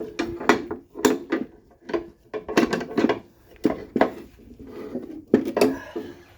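Irregular metallic clinks and knocks, about a dozen, from steel tools and strut parts being handled while a coil spring is set up in a spring compressor.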